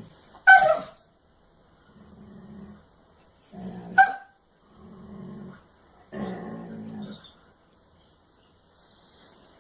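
A pet growling in short low rumbles, with two sharp high yelps: one about half a second in and one about four seconds in.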